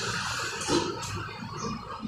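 Turret milling machine drilling through a thick steel plate: the cutter grinds steadily into the metal as chips come off, with a couple of brief louder spells about a second in.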